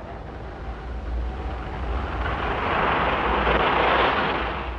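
A rushing, whooshing noise in a film soundtrack, swelling over about two seconds and fading near the end, over a steady low rumble.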